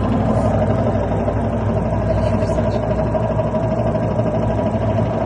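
LG washing machine running with a steady rattling rumble and a constant whine over a low hum.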